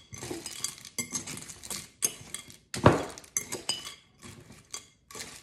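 Metal fork stirring dry pasta and shredded cheese in a glass bowl, clinking and scraping against the glass in irregular strokes, with one louder knock about three seconds in.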